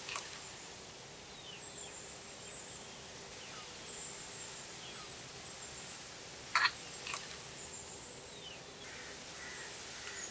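A crow caws once at the very start and twice in quick succession about six and a half seconds in. Behind it is a faint steady outdoor background with small, high bird chirps.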